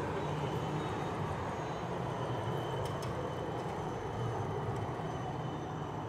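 City tram passing close by: a steady low rumble with a faint high whine that sets in about half a second in.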